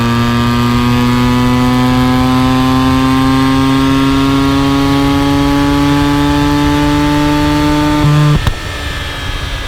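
Mazda RX-8 R3's rotary engine, running without a catalytic converter through a Racing Beat intake and Invidia Q300 exhaust, held under load with the revs climbing slowly and steadily. About eight and a half seconds in, the note breaks off with a click and a quieter, lower sound follows.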